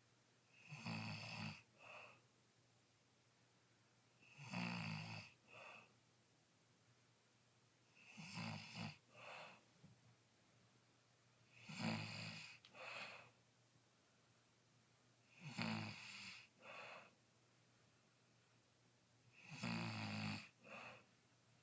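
A sleeping person snoring in a steady rhythm: six snores, one every three and a half to four seconds, each a longer, louder snore followed by a short, softer sound.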